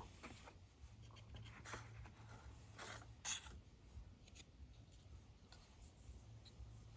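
Faint rustling and light taps of cardstock paper being handled on a worktable, a few short scrapes scattered through, the clearest about three seconds in.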